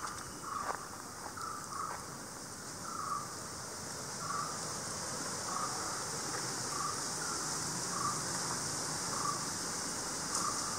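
Steady high-pitched drone of insects, with a short lower call repeating about once a second over it.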